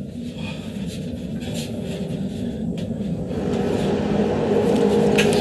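Low rumble with steady droning tones, growing louder about halfway through, with a few sharp clicks near the end: a film's ominous sound-design drone.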